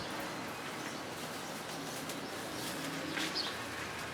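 Steady background noise with a faint, brief bird chirp a little over three seconds in.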